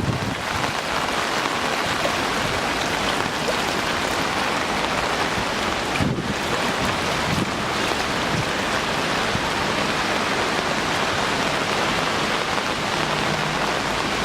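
Floodwater rushing fast down a flooded city street, a steady heavy hiss that does not let up.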